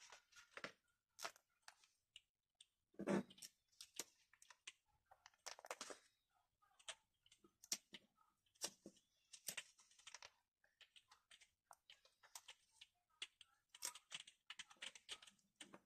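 Faint rustling and crinkling of a display-book portfolio's clear plastic sleeves as its pages are turned by hand, with scattered small clicks and ticks; the loudest rustle comes about three seconds in.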